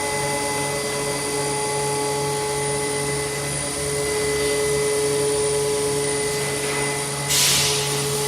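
Automatic tray sealing machine running a skin-pack cycle: a steady hum with several fixed tones from its pump and motors. About seven seconds in comes a short hiss of air.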